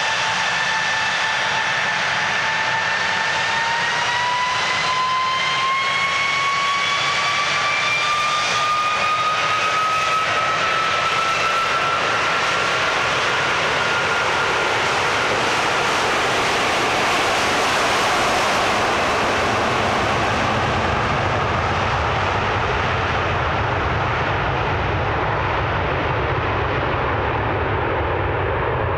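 Airbus A330's Rolls-Royce Trent 700 turbofans spooling up for takeoff: a steady fan whine begins to rise about four seconds in and climbs for about ten seconds, then gives way to a broad jet roar as the airliner rolls away, with the whine fading and a deep rumble building near the end.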